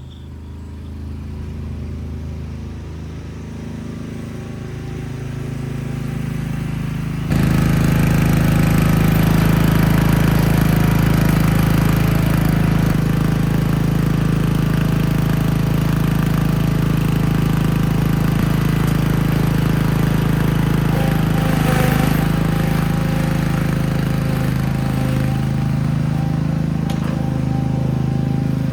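A vehicle engine running steadily, growing louder over the first few seconds, then jumping abruptly louder about seven seconds in and holding there.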